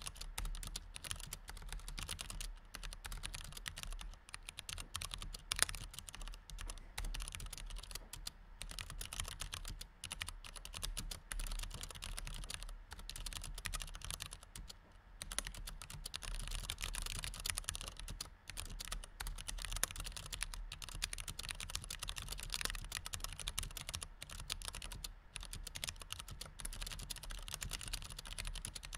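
Continuous fast typing on a low-profile computer keyboard with white chiclet-style keys: a dense run of light key clicks, broken by a few brief pauses.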